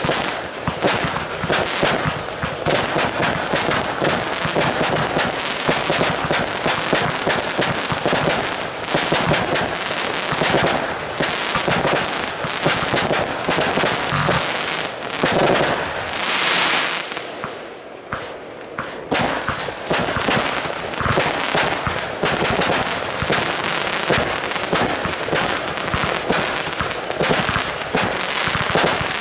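Aerial fireworks display firing in quick succession: a dense, continuous stream of bangs and pops from bursting shells and stars, with a short lull about two-thirds of the way through.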